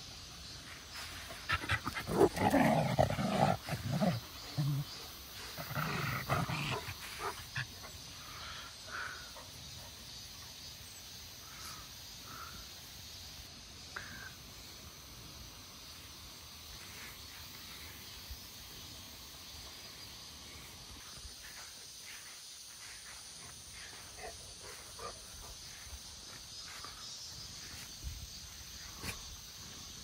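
Dogs growling at each other in play, in two loud stretches about two and six seconds in, then a few smaller sounds. A steady high drone of cicadas runs underneath.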